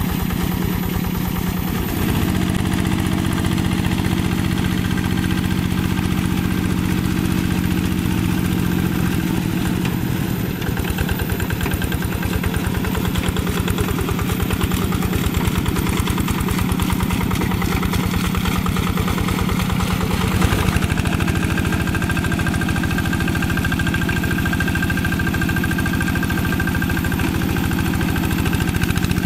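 Single-cylinder diesel engine of a two-wheel hand tractor running steadily under load as it drags a tiller through wet paddy mud. The engine note shifts slightly a few times.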